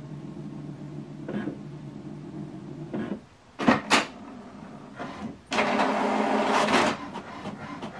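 HP DeskJet 4120e inkjet all-in-one running a colour copy job. Its mechanism hums steadily, gives two sharp clicks about three and a half seconds in, and makes a louder, busier rush of mechanical noise for about a second and a half near the end.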